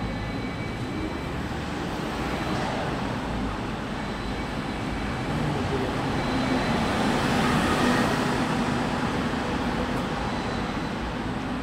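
Steady background noise of road traffic, swelling a little louder about seven to eight seconds in.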